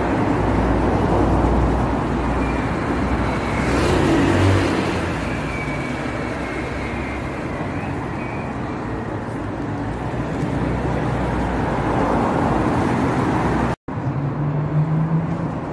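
Road traffic noise, with cars passing and a low rumble that swells about four seconds in. The sound cuts out completely for a split second near the end.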